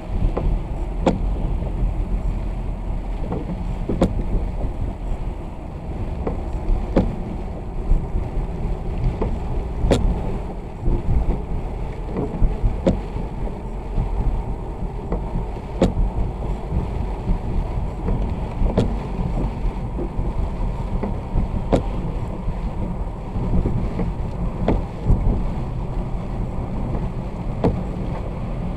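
Steady low road and engine rumble of a car driving on wet roads in the rain, with a sharp tick every two to three seconds.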